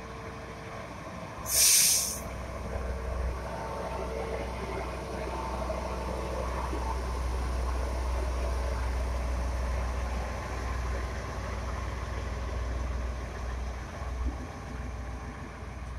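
Plasser & Theurer track maintenance machines rolling slowly past with their diesel engines running, a steady low rumble. About a second and a half in, a short, loud hiss of compressed air cuts through.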